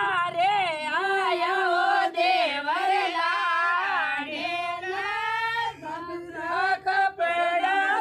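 Women's voices singing a Marwari devotional bhajan, the melody gliding and wavering on long held notes.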